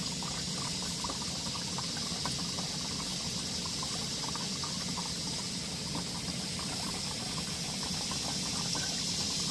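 Used frying oil pouring and trickling steadily through a plastic funnel filter into a container.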